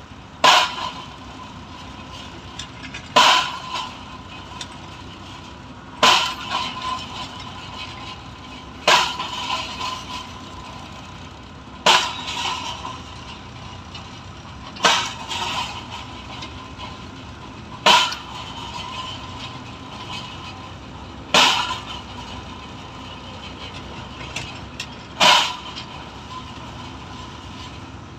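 Pile driver's hammer striking a pile, nine sharp bangs roughly every three seconds, each ringing briefly, over the steady hum of the rig's engine.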